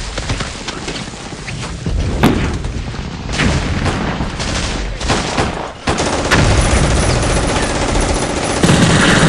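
Battle sound effects: separate gunshots, then denser gunfire and booms, growing louder near the end.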